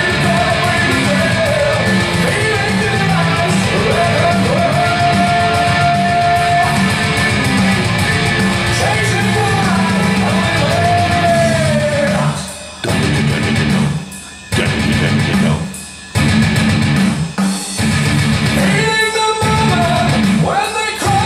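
Background music: a rock song with singing and guitar, cutting out briefly a few times past the middle.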